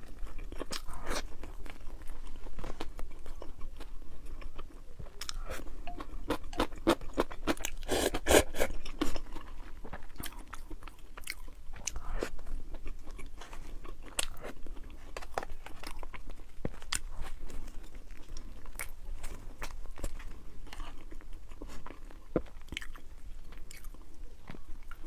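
A person eating close to the microphone: crisp crunching bites and chewing, busiest about a third of the way through.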